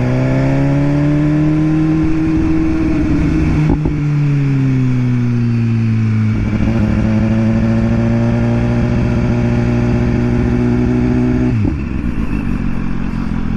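Motorcycle engine running at low speed: the revs climb for a couple of seconds, break briefly about four seconds in and ease down, hold steady, then drop suddenly near the end.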